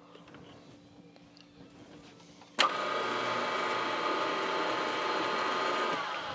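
Benchtop milling machine's spindle motor switched on with a click about two and a half seconds in, running with a steady whine, then slowing with falling pitch near the end as it is switched off and coasts down.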